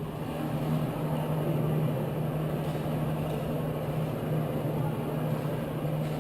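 A motor or engine running steadily, a constant low hum over a rumble that holds unchanged.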